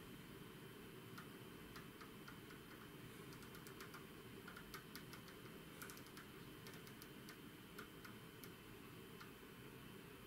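Faint irregular clicking of a knob being turned to lower a function generator's frequency, bunched most thickly around the middle, over low hiss and a faint steady high whine.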